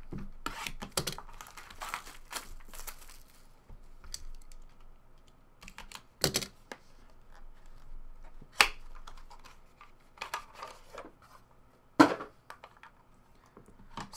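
Hands handling trading cards in hard plastic holders and a cardboard pack box: rustling and sliding, with scattered light clicks and three sharp taps of plastic cases knocking together or being set down.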